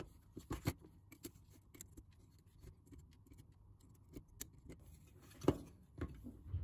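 Faint scattered clicks and taps of bench work on a power-supply circuit board: steel pliers gripping and pulling out a freshly desoldered component, and the board being handled on the bench. The sharpest click comes about five and a half seconds in.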